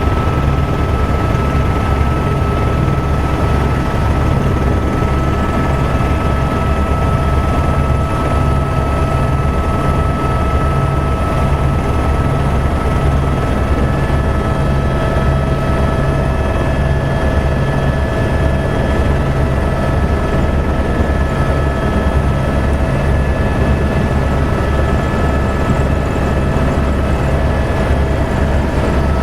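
Helicopter cabin noise in steady flight: a loud, even low thrum from the rotor and engine, with a steady high whine over it.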